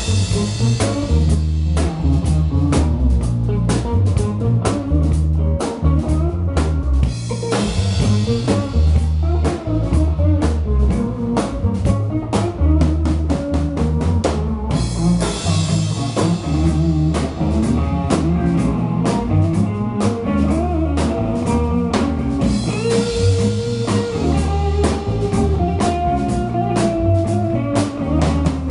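Live rock band playing: drum kit keeping a steady beat under electric bass and electric guitars, with a guitar line standing out near the end.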